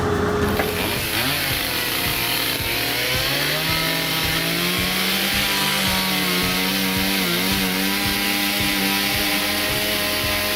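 Chainsaw engine revving up over the first few seconds, then running steadily at high speed, with one brief dip in pitch about seven seconds in.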